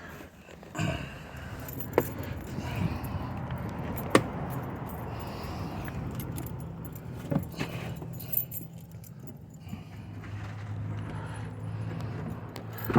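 Loose items being handled and shifted around in a car trunk, with metallic jingling and rattling and a few sharp clicks. A low steady hum sets in about halfway through, and there is a sharp knock at the very end.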